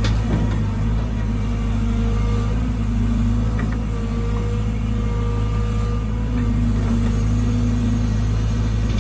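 Caterpillar 313GC excavator's diesel engine running steadily under load, with a hydraulic whine that comes and goes as the machine works and a few brief sharp knocks.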